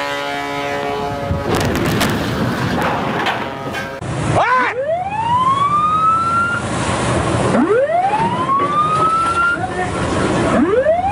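A ship's horn sounds a steady blast for the first second or so, followed by noisy splashing and scraping. After a cut, a ship's siren winds up in rising sweeps three times, about three seconds apart, over rushing sea and wind noise.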